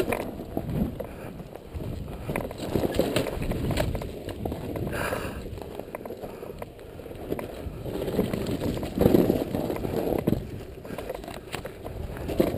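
KTM dirt bike ridden slowly over loose rock: its engine running at low revs with several swells of throttle, mixed with scattered knocks and clatter from the tyres and suspension on stones.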